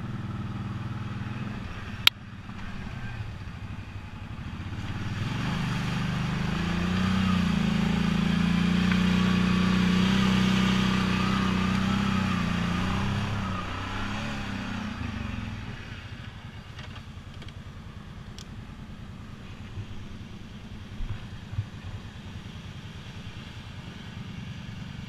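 ATV engine pulling along a dirt trail: it rises in pitch and level about four seconds in, runs hard for several seconds, then eases off and settles to a low steady rumble. A single sharp click about two seconds in.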